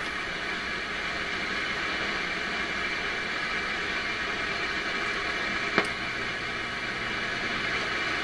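Steady hiss of shortwave static from the PYE 39HC valve receiver's loudspeaker, with one sharp click about six seconds in.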